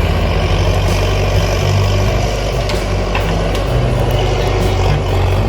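Heavy diesel machinery running steadily at a loud, even level, with a deep rumble and a few faint clicks and knocks.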